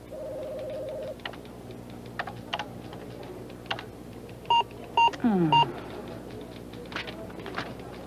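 Computer keyboard keys clicking with electronic computer beeps: a held beep at the start, then scattered keystrokes, three short beeps with a falling tone about halfway through, and a few more keystrokes near the end.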